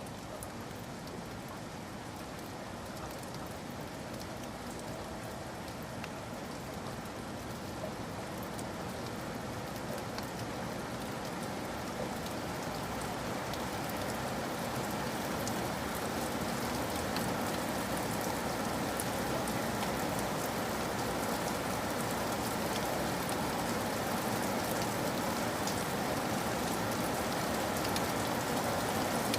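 Steady rain falling, a continuous hiss with scattered drop ticks, growing slowly louder.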